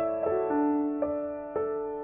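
Slow piano melody, single notes struck about twice a second and left to ring and fade.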